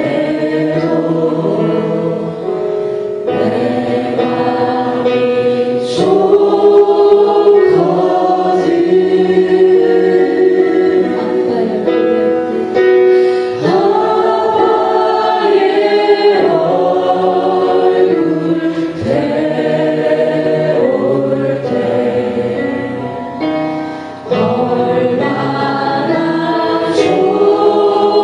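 A worship team and group singing a slow worship song together, in long held phrases of several seconds.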